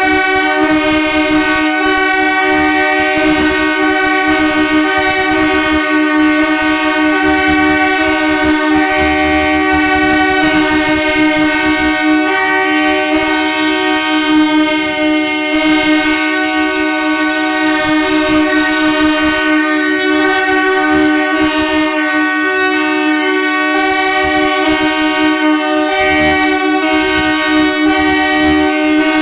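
Several train horns sounding together in one long, steady, overlapping chord, some tones dropping out and coming back in while the others hold.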